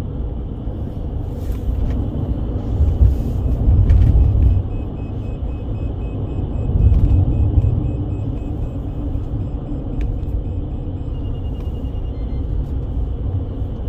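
Steady low rumble of road and engine noise heard from inside a moving vehicle, swelling louder about three seconds in and again about seven seconds in.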